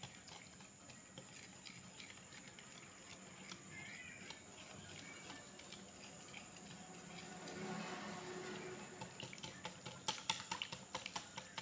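Wire whisk beating a runny semolina cake batter in a bowl: faint wet sloshing with light, quick clicks of the whisk against the bowl, the clicks sharper near the end.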